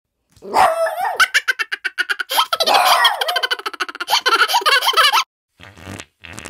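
A dog barking in a rapid, continuous volley for about five seconds, then a short, low buzzing sound near the end.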